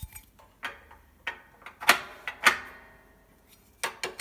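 A metal key clinking against the air-regulation handle of a Guca Arina cast-iron stove: about eight sharp metallic clicks and knocks at irregular intervals, the loudest around the middle.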